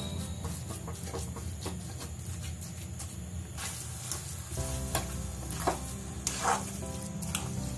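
A wooden spatula stirs and scrapes a wet mix of grated fresh coconut and sugar around a metal kadhai on the gas, with a sizzle as the sugar syrup cooks. The scraping strokes get louder and more distinct about five seconds in.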